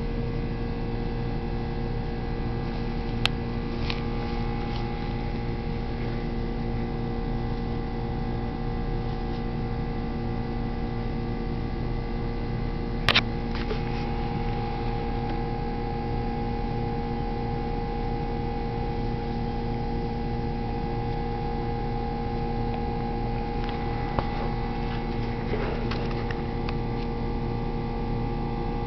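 Steady electrical or machine hum made of several fixed tones, broken by a few short sharp clicks spread through it.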